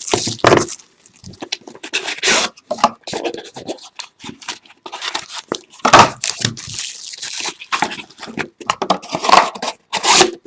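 Trading-card packaging being torn open and handled: irregular ripping and crinkling rasps with sharp snaps of wrapper and cardboard.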